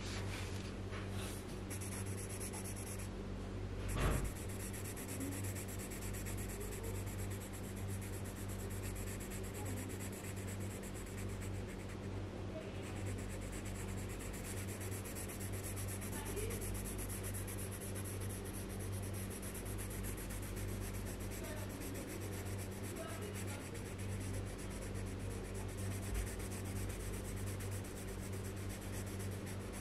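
Red coloured pencil shading on paper in quick back-and-forth strokes, a continuous scratchy rubbing of the lead. A steady low hum runs underneath, and there is a single short knock about four seconds in.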